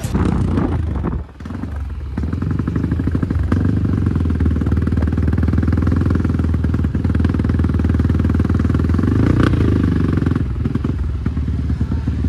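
Motocross bike engine running while it warms up, mostly steady, with a short dip about a second in and a brief rev that rises and falls around nine seconds in.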